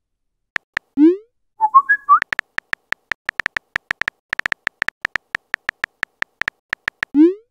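Messenger-app sound effects: keyboard tap clicks, sparse at first and then a rapid run of taps as a message is typed out. A rising pop of a message being sent comes about a second in and again near the end, with a short whistle-like alert chirp just after the first one.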